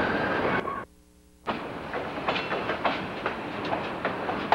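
Freight train cars rolling below, wheels clacking and knocking irregularly over rail joints. The sound cuts out briefly about a second in, then the clacking resumes.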